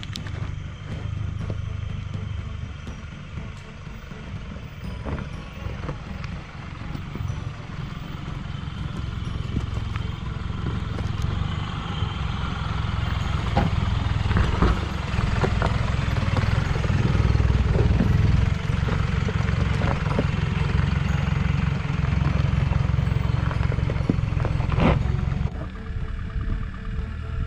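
A Toyota Prado 4WD's engine labouring as it crawls up a steep rocky track, growing louder as it nears, with tyres crunching and knocking over loose rocks. A sharp knock comes near the end, and then the engine sound drops away.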